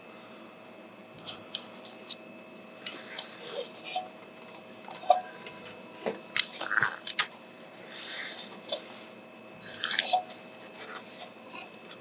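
Irregular clicks, scrapes and rustles of a tree climber handling his rope and climbing gear against the tree, with a longer scraping rustle about eight seconds in.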